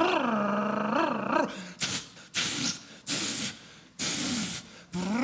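A man imitating a tuned car's engine with his voice into a microphone: a revving sound that rises and falls in pitch, then four short hissing bursts, then another rising rev near the end.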